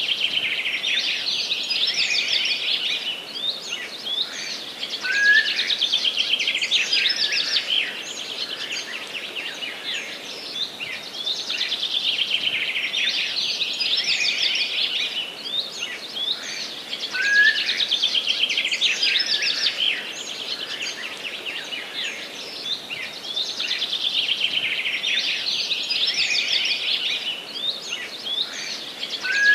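Forest birds singing: rapid, twittering song phrases that swell and fade every few seconds over a steady background hiss.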